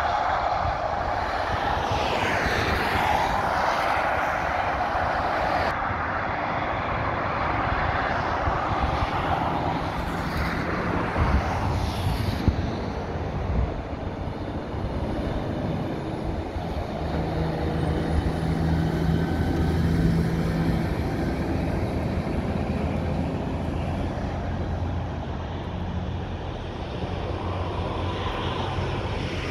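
Motorway traffic going by at speed: a steady wash of tyre noise and engine rumble from passing cars, vans and lorries. A heavy lorry's engine hum stands out for a few seconds past the middle.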